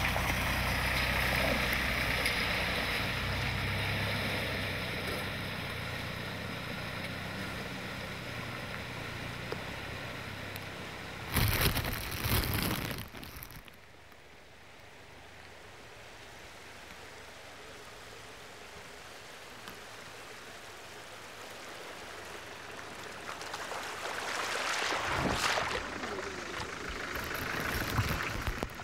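A 4x4 van driving through a flooded dirt track: engine running with water splashing and rushing. There is a loud burst about eleven seconds in, and the sound builds to heavy splashing as the van comes close near the end.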